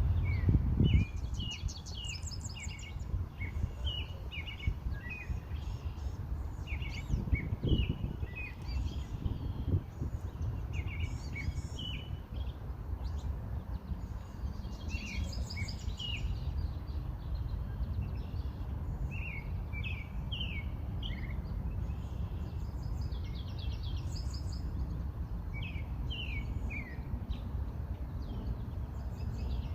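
Several songbirds chirping and singing: quick short notes and trills, some in clusters, over a steady low background rumble.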